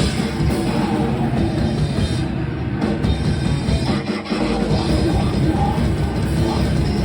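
A loud heavy rock band playing live, with distorted guitar and drum kit in a dense wall of sound. The low end drops out briefly about four seconds in.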